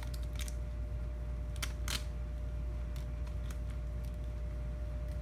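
A few light clicks and one brief rustle about two seconds in, over a steady low electrical hum and a faint steady tone.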